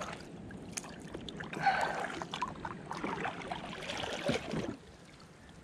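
Water splashing and dripping with small knocks against a kayak while a just-caught flathead is handled, the splashing dying down about three-quarters of the way in.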